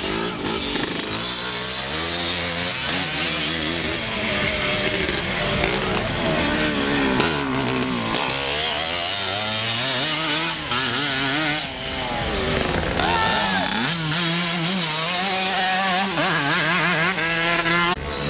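Motocross motorcycle engines racing on a dirt track, several at once, revving up and down as the riders work through the gears. One engine climbs in pitch about two-thirds of the way through, and near the end one holds a steadier note.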